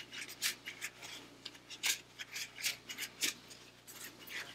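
A paper towel being scrubbed inside the metal body of a hand plane in quick, irregular rubbing strokes, wiping out leftover abrasive grit after lapping.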